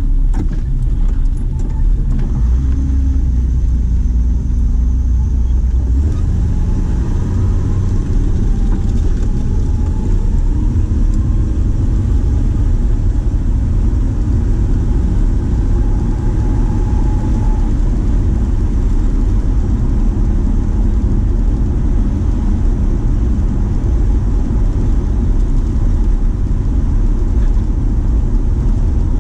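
Car engine and road rumble heard from inside the cabin while driving. The engine note rises as the car pulls away in the first few seconds, then settles into a steady cruise.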